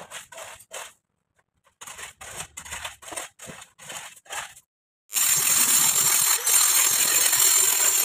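A hoe chopping and scraping into gravelly soil in quick crunching strokes, about three a second, with a pause of about a second near the start. About five seconds in, the strokes stop and a louder, steady hissing noise takes over.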